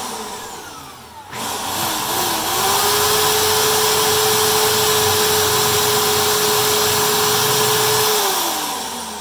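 Electric drill boring a hole through the wooden inside of a kayak. A short burst that spins down, then a run of about six seconds at a steady pitch that winds down near the end.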